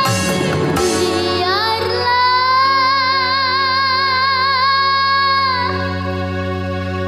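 A young girl singing dangdut in a high voice over instrumental accompaniment; about two seconds in she settles on one long high note with vibrato and holds it for several seconds.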